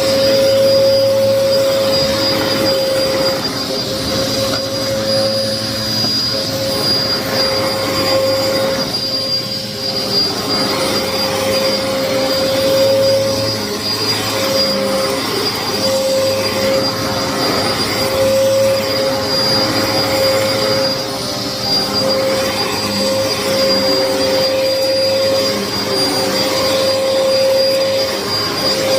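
Hoover vacuum cleaner running steadily, a constant motor whine over airflow noise, its pitch dipping briefly now and then. The owner says the machine was clogged and needed unclogging.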